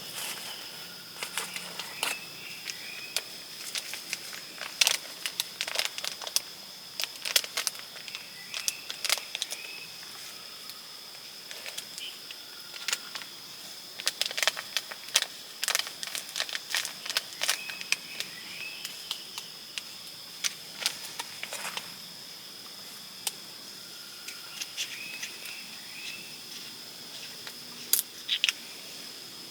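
Forest ambience with a steady high insect drone, short chirps now and then, and frequent sharp clicks and taps from close handling of gear.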